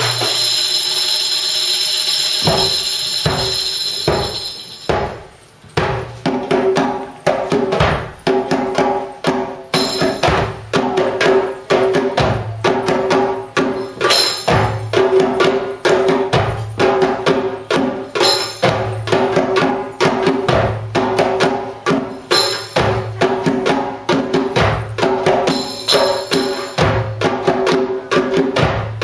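Live hand drumming on darbukas with a jingling frame drum. It opens with a sustained jingle roll, and from about five seconds in settles into a steady beat of drum strokes, with short jingle shakes every few seconds.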